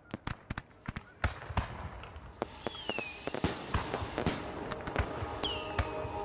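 Fireworks display: a rapid run of sharp bangs and crackles over a building hiss, with a whistle falling in pitch twice, about two and a half and five and a half seconds in.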